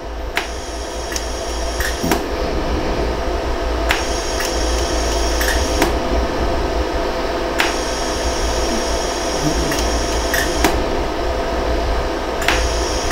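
LaserStar jewellery laser welder firing single pulses: about seven sharp clicks, roughly two seconds apart, over the machine's steady hum. These are low-energy smoothing shots, hammering down and smoothing the weld where a post has been attached to a thin sterling silver earring.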